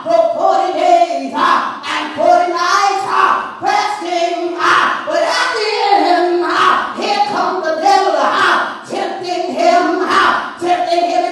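A woman singing into a microphone in long held notes with short breaks between phrases, and hands clapping along.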